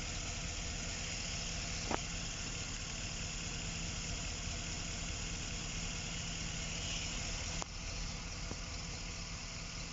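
GMC Savana V8 engine idling steadily and evenly, its injector misfire cured by bypassing a weak wire in the engine harness that had starved the injectors of voltage. Two light clicks, about two seconds in and near eight seconds.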